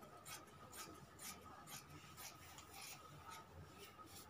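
Scissors cutting through cloth: faint, repeated snips about twice a second.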